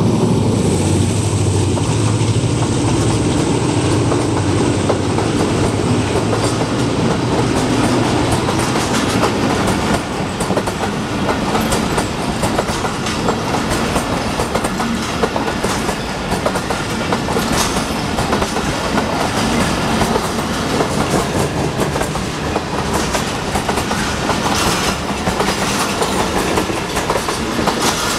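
Passenger coaches of a Pakistan Railways express rolling past close by, gaining speed, their wheels clattering over the rail joints. A low engine drone from the diesel locomotive that has just passed fades out over the first several seconds.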